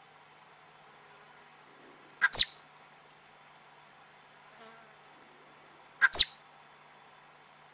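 Marmot alarm calls: two sharp, high-pitched calls about four seconds apart, each a brief note followed at once by a louder one. These are the danger signal that a marmot gives while sitting up on watch.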